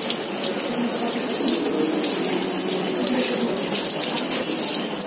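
Water running steadily from a tap and splashing into a basin.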